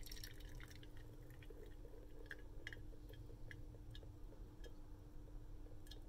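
Tea draining from an upturned gaiwan through a strainer into a glass pitcher. The pour tails off in the first second, then the last drops fall one by one, faint and irregular, often a second or so apart.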